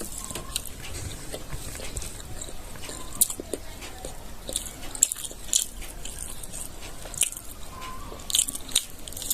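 Person eating pork in gravy with rice, with wet mouth smacking and chewing. It comes as irregular sharp clicks a few times a second.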